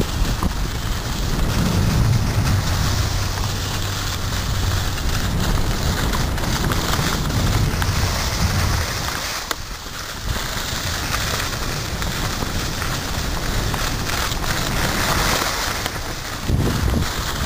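Skis sliding and scraping over snow while skiing downhill, with wind rushing over the microphone: a steady hiss that dips briefly a little past halfway and swells again near the end.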